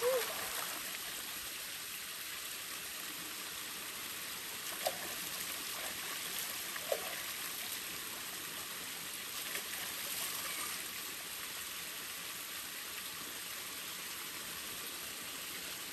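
Shallow river water running steadily, with trickling and light splashing as a person scoops water up in cupped hands to wash her face and body.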